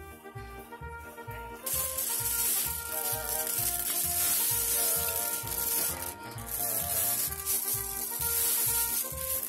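Background music with a steady beat; from about two seconds in, a loud continuous clatter of polished tumbled stones as hands dig and stir through a bin of them, dying away near the end.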